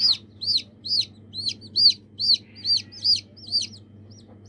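Newly hatched chick peeping over and over, about two high peeps a second, each rising then falling in pitch. The peeps grow fainter and stop near the end.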